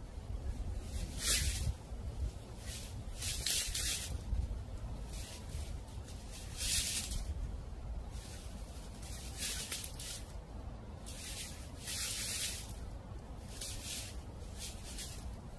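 Footsteps crunching through dry fallen leaves: about ten short, crisp crunches at a slow, uneven walking pace, roughly one every second and a half. A low rumble of wind runs underneath.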